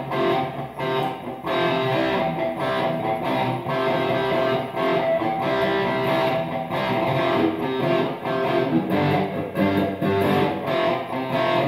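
Stratocaster-style electric guitar playing a riff of simplified two-note power chords, moving between C and F, as a steady run of strummed chord hits.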